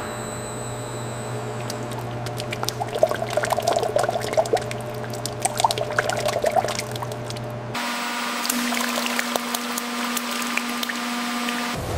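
AI-generated (Veo 3) sound effect of thick syrup pouring and splashing into a stainless steel vat over a steady machine hum, the splashing loudest in the middle. About eight seconds in it cuts suddenly to a second pour with a different, higher steady hum.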